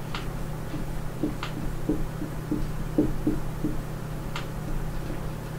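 Marker pen writing on a whiteboard: a run of short strokes and a few sharp taps of the pen tip on the board, over a steady low hum.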